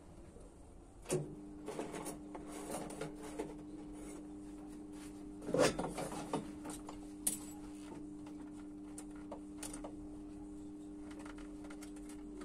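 Stick (arc) welder switched on with a clunk about a second in, then humming steadily. Metal clinks as a welding rod is handled and fitted into the electrode holder, with a louder clatter a little before the middle.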